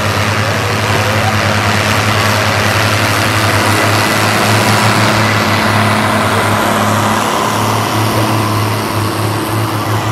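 International Harvester tractor's diesel engine working under load as it drags a weighted sled through deep mud: a steady, pulsing low engine note, loudest about halfway through as the tractor passes close.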